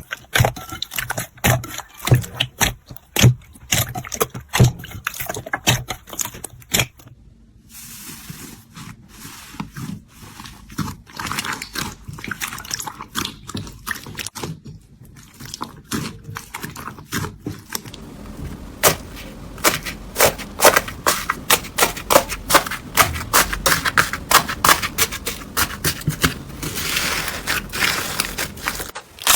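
Hands squeezing, pressing and poking slime: dense runs of sharp crackles and pops, with the texture of the sound changing abruptly a few times.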